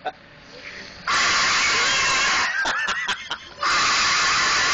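A cockatoo screeching: two long, loud, harsh screams about a second and a half each, with a few short calls between them.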